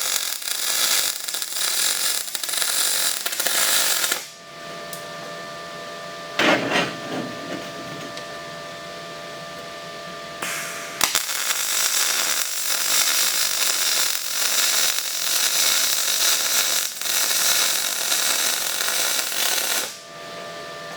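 Wire-feed (MIG) welding arc crackling and hissing in two runs, one of about four seconds and a longer one of about nine seconds, while the welder hums steadily between them.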